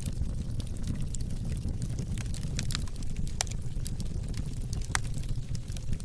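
Fire crackling: many irregular sharp pops and snaps over a steady low rumble of burning.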